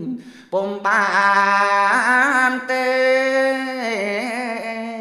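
Khmer smot chanting: one man's voice, unaccompanied, drawing out long held notes with wavering, ornamented turns. There is a brief break about half a second in, then a long phrase that stays on sustained vowels.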